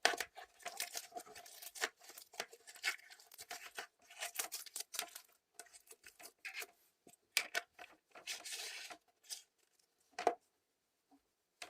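Clear slime being squeezed and played with by hand: a run of sticky crackles, clicks and squelchy pops. They thin out and stop about ten seconds in, after one last pop.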